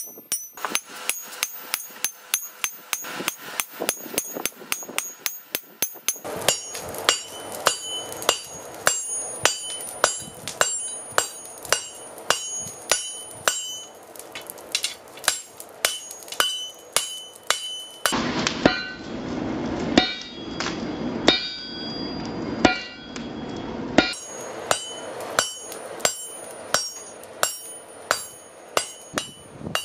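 Hand hammer striking a red-hot steel katana blade on an anvil in a steady rhythm, about two to three blows a second, each blow followed by a bright metallic ring.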